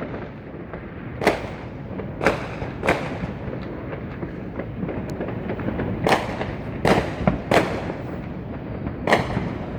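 Neighbourhood New Year's fireworks and firecrackers going off: about seven sharp bangs at irregular intervals over a steady background of distant popping and rumbling.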